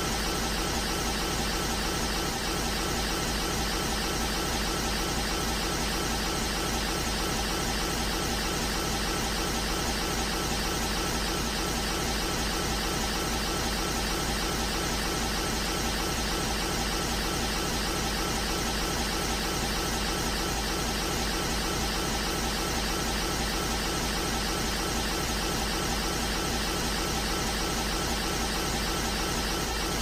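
Dragon Ball power-up aura sound effect for Golden Frieza at 100%: a steady, dense rushing noise with a low hum beneath, looping without change.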